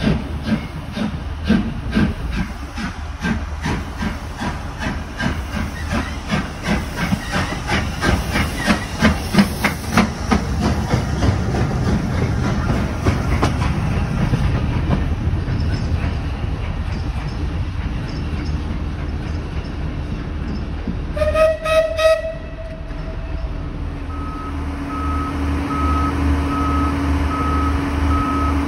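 Steam locomotive No. 131, a GNR(I) 4-4-0, pulling away with regular exhaust chuffs that quicken and then fade over the first fifteen seconds. A short whistle blast sounds about twenty seconds in, followed by a steady electric hum.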